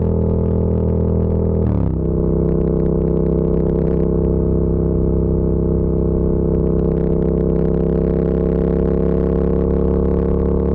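Yamaha MT-07's 689 cc parallel-twin engine and exhaust running as a steady drone. The revs drop sharply about two seconds in, then hold and slowly climb.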